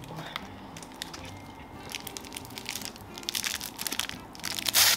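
Plastic candy wrapper crinkling and crackling as it is handled and pulled open, ending in a loud rip near the end as the packet tears open.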